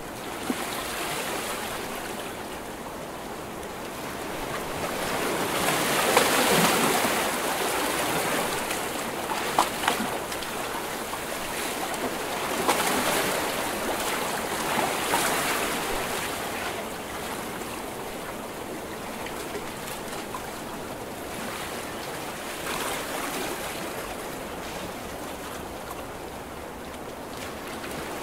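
Ocean waves crashing and washing in, a continuous surf noise that swells with each breaking wave. The biggest wave peaks about a quarter of the way in, with smaller ones later and a few sharp splashes just after it.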